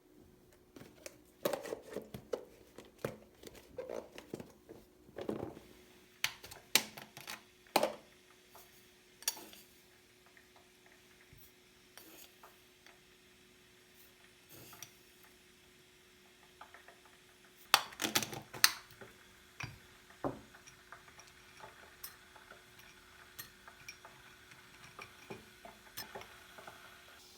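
Kitchen handling sounds: dishes and utensils clinking and knocking at irregular moments, with two busy clusters, one in the first several seconds and one a little past the middle. A faint steady hum runs underneath.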